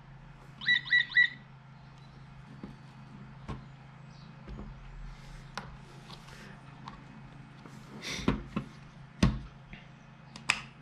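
Three quick high electronic beeps from a DESS key copier about a second in, then scattered plastic clicks and knocks as the copier and key are handled on a table, the loudest near the end.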